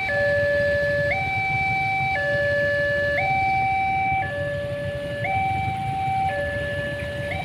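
Railway level-crossing warning alarm sounding a two-tone signal, the high and low tones swapping about once a second, over the low rumble of idling vehicles waiting at the crossing.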